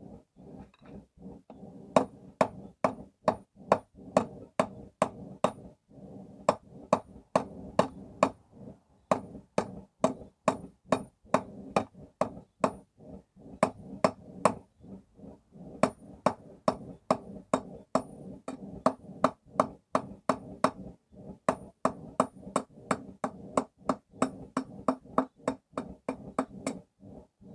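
Forging hammer striking steel on a stake anvil in runs of sharp, ringing blows, about two to three a second, with short pauses between runs. The first couple of seconds hold lighter taps before the heavier strikes begin.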